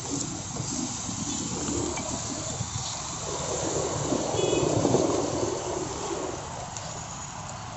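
Roadside background noise of passing traffic, a steady rumble that swells briefly as a vehicle goes by around the middle and then eases off.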